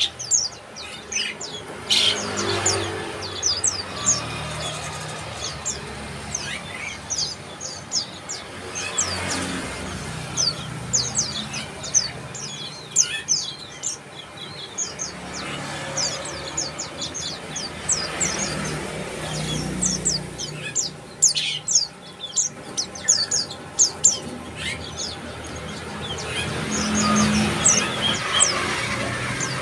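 Bar-winged prinias calling: quick clusters of short, high chirps that keep coming throughout.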